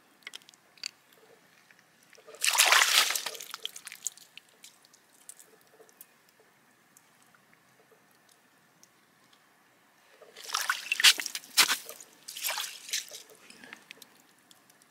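Icy water sloshing and splashing in two bursts, about two seconds in and again after ten seconds, as a small fish is worked in it by hand. Faint wet clicks of the fish being gutted come between the splashes.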